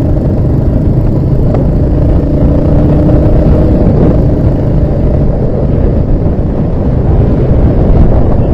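Loud, steady ride-along noise from a motorcycle cruising on a highway: engine and road noise mixed with wind buffeting the microphone.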